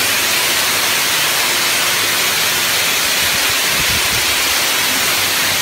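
Hose spraying a powerful jet of water, a loud steady hiss.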